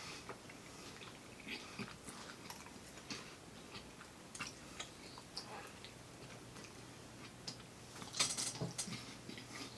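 Faint eating sounds: soft chewing and scattered small clicks of food being handled, with a louder brief rustle about eight seconds in.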